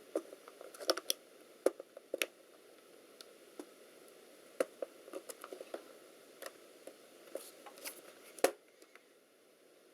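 Hands and a small screwdriver working on a laptop's plastic case: scattered light clicks and taps at irregular intervals, the sharpest a little before the end.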